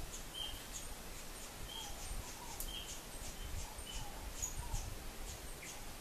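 Birds chirping: many short high chips and brief calls, scattered irregularly, over a low rumble.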